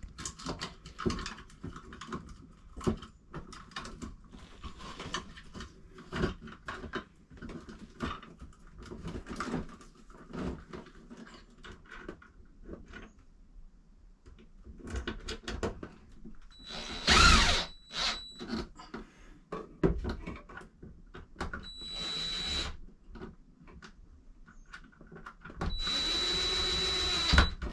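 Small clicks and knocks of tools and parts being handled, then a power drill running in three short bursts. The third burst, near the end, is the longest at about a second and a half, and it is used on screws at a wall outlet.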